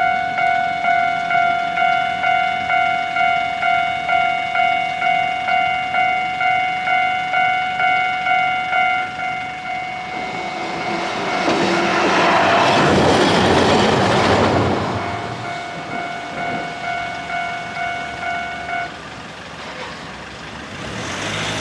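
Japanese railway-crossing warning bell ringing its electronic 'kan-kan' at a steady beat, about one and a half strikes a second, then stopping near the end. Partway through, a Hankai Tramway tram passes over the crossing, its running noise swelling up and fading away.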